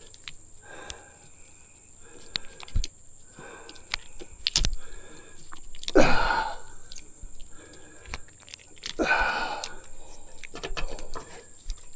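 A man breathing hard and straining in several heavy exhalations while he works loose an old, stuck tree-stand strap, with scattered sharp clicks and knocks from the strap and metal stand. The two loudest breaths come about 6 and 9 seconds in.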